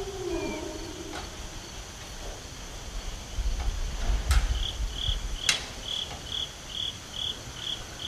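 An insect chirping in a steady rhythm, about two or three high chirps a second, from about halfway through, over a faint steady high trill. A low drawn-out tone falls away in the first half second, and a couple of sharp clicks and low rumbles come near the middle.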